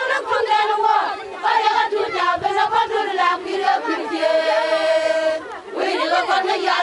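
Group of women singing and chanting together, with one steady high note held for about a second just past the middle.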